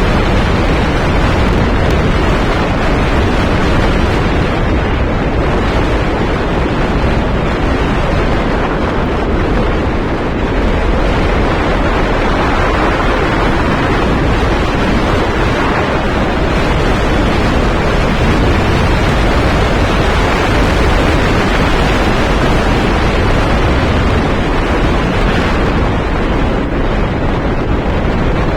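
Wind buffeting the microphone: a loud, steady rushing with no pauses.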